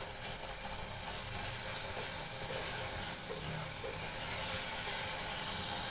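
Turnip sabzi sizzling steadily in an open steel pressure cooker over a gas flame as its leftover water cooks off, with faint stirring from a wooden spatula.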